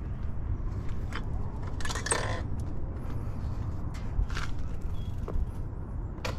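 Handling noise of an action camera being adjusted by hand on its mount: scattered sharp clicks and a brief rustling scrape about two seconds in, over a steady low rumble.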